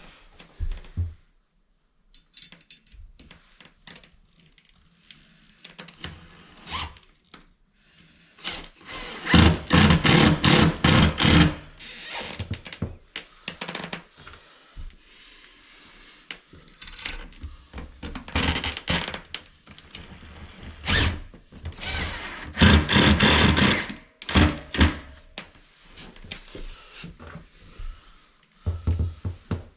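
Tool work on a toilet install: three bursts of rapid clicking or rattling, each about two seconds long, like a ratchet or power driver running a bolt down, with knocks and thunks between.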